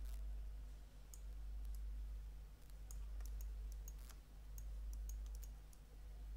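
Computer mouse clicks, a dozen or so at irregular spacing, over a steady low electrical hum.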